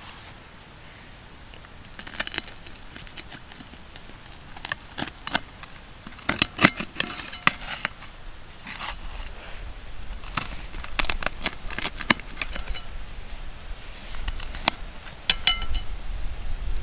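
Knife cutting through crispy hash browns and bacon in a cast iron skillet, helped by a wooden fork: irregular crunching and the metal blade scraping the pan, in short strokes.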